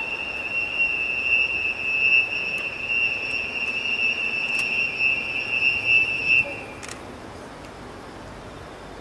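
A steady, high-pitched whine held at one pitch, cutting off about six and a half seconds in.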